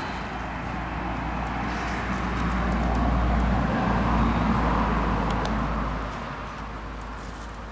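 A road vehicle passing by: a broad rushing sound with a low rumble beneath, swelling over the first few seconds, loudest around the middle, then fading away after about six seconds.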